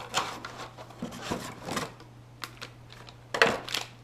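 Hands handling a cardboard shipping box and its contents: scattered clicks, knocks and scrapes, the loudest cluster near the end, over a steady low hum.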